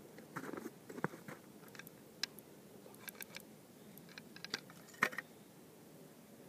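Faint clicks, small crunches and scrapes as fishing line is pulled in by hand over the edge of an ice-fishing hole, with sharper clicks about a second in and about five seconds in.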